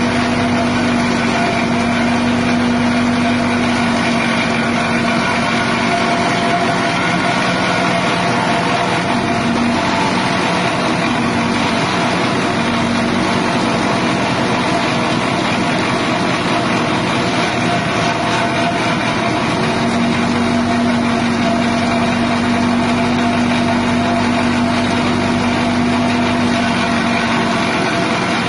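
Grass chopper machine driven by a 6.5 hp petrol engine, running steadily and loudly without a break, its hum wavering slightly in places.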